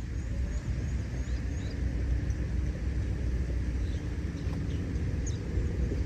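Outdoor ambience: a steady low rumble of wind on the microphone, with a few short, faint, high bird chirps.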